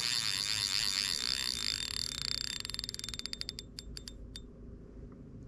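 Fishing reel drag paying out line as a large foul-hooked carp runs: a continuous high whine that breaks up about three seconds in into clicks that slow down and stop around four seconds.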